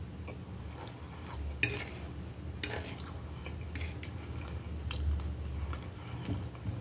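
A metal fork clinking and scraping on a plate, with a few sharp clicks about a second apart, along with close-up chewing of soft food.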